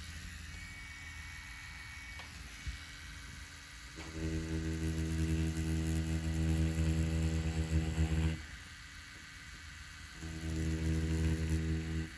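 Spectra Flux rotary tattoo pen machine running with a steady hum as it lines ink into orange peel. It is quiet for the first few seconds, runs for about four seconds, stops for about two, then starts again near the end.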